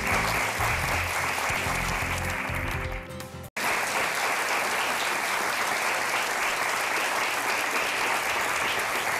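Studio audience applauding over bumper music. About three and a half seconds in, the sound cuts out for an instant, and the applause goes on without the music.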